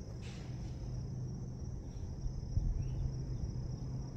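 A steady, high-pitched insect chorus over a low rumble, with a soft thump about two and a half seconds in.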